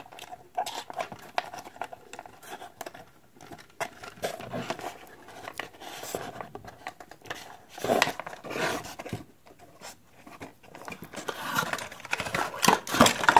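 Hands untwisting thin wire twist-ties from a cardboard packaging insert: irregular scraping, rustling and small clicks of the ties and cardboard being handled, with louder bouts about eight seconds in and near the end.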